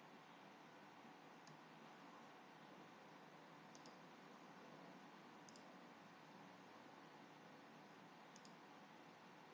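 Four faint computer mouse clicks about two seconds apart, most of them quick double clicks, over a steady low hiss.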